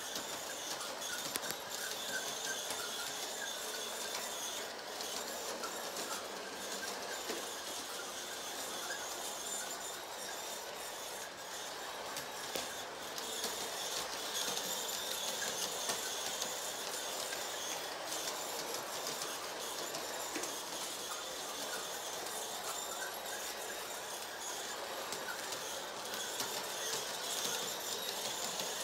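Toy Christmas train running around its oval track under the tree: a steady whir of its small motor and gears, with scattered clicks of the wheels on the track.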